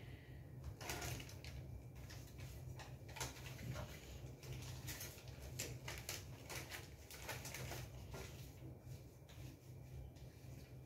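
Thin white plastic bag rustling and crinkling in the hands as it is handled, in short irregular crackles over a faint steady low hum.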